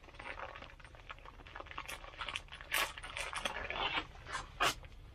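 Gloved hands rustling and crinkling the plastic bags of mushroom cultivation blocks while pulling a lion's mane mushroom off its block, a faint irregular crackling with a few sharper snaps.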